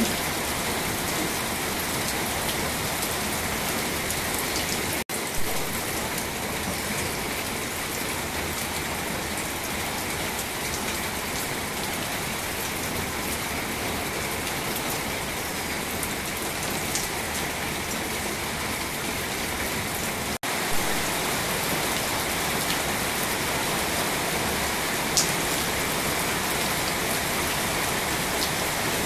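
Steady rain falling, an even patter with a few faint ticks, cutting out for an instant about five seconds in and again about twenty seconds in.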